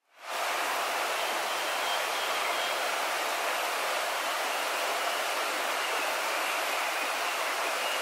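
Steady rush of flowing stream water, starting abruptly just after a brief silence, with a faint high steady tone above it.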